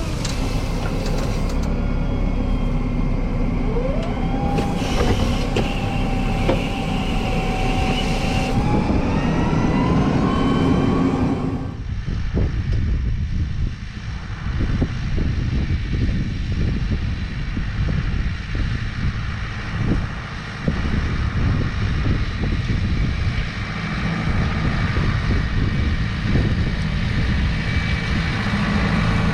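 Massey Ferguson 5S.115 tractor running steadily, with a whine that rises in pitch over a few seconds. About twelve seconds in, the whine stops and a rougher rumble with repeated knocks takes over.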